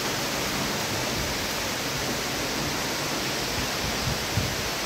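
Torrential rain pouring down in a dense, steady hiss.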